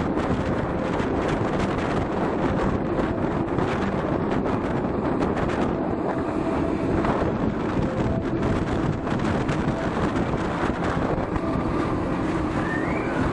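Narrow-gauge Zillertal Railway train running along the line, heard from an open carriage window: steady wheel-on-rail running noise with wind buffeting the microphone.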